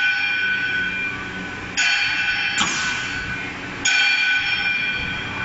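Multi-spindle drilling machine's twist drills cutting into a steel tube: a high, ringing whine that starts suddenly about two seconds in and again near four seconds, each time fading as the bits feed through, over the steady hum of the machine's motors.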